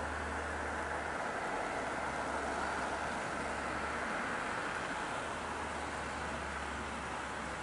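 Steady, even hiss of outdoor street ambience with a faint low hum underneath that comes and goes.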